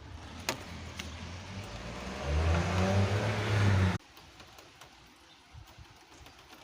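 A car passing on a wet road: the hiss of its tyres on the wet surface and the low hum of its engine grow louder, then cut off suddenly about four seconds in, leaving faint steady background noise.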